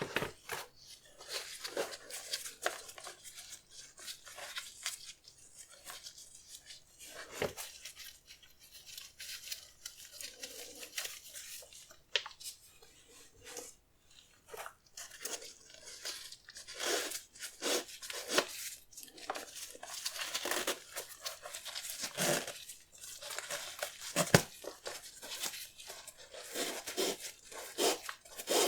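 Paper packing from a sneaker box being handled, crinkling and rustling in irregular bursts, with a few sharper knocks.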